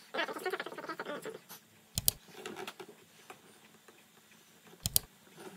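Apple Pencil writing on an iPad's glass screen: scratchy strokes of the plastic tip for the first second or so, then light ticks, with two sharper clicks about three seconds apart.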